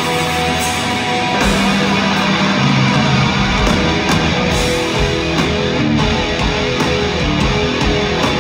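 Instrumental progressive metal played live: distorted electric guitar over bass guitar and a drum kit with cymbal crashes, loud through a theater PA and heard from the audience.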